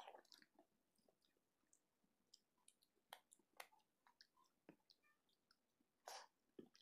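Faint mouth sounds of a person eating khichuri by hand: scattered soft clicks and chewing, with one longer, louder sound about six seconds in.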